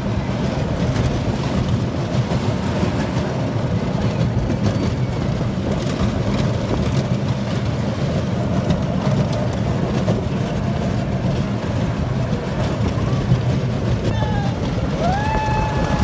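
Roller coaster train running along its track, a steady loud rumble from the wheels with wind buffeting the microphone, heard from a seat in the car. Near the end a rider lets out a drawn-out call.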